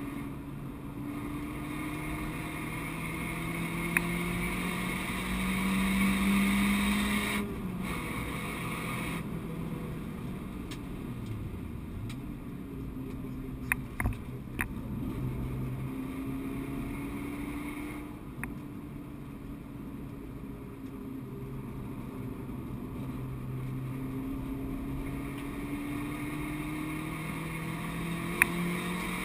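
Renault Clio 172's 2.0-litre four-cylinder engine heard from inside the cabin under hard driving, its revs climbing steadily for several seconds at a time and dropping sharply at gear changes and lifts before climbing again. A few brief sharp clicks in between.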